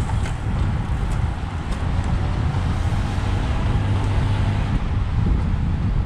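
Steady rush of wind buffeting the microphone, with a low rumble of road noise underneath.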